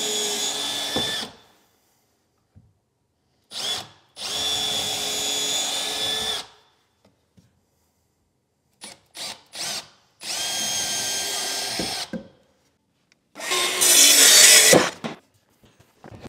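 Cordless drill boring angled pilot holes into the underside of a white oak stair riser. One run ends about a second in, then three more runs of about two seconds follow, with short trigger blips between them. The last run is louder and harsher.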